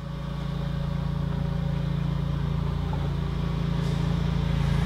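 Engine idling steadily, a low even hum that swells in over the first second and then holds.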